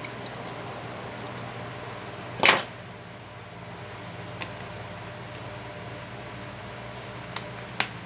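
A steady low hum runs throughout. Over it come scattered sharp clicks of small hard objects being handled, with one louder clack about two and a half seconds in and two quick clicks near the end.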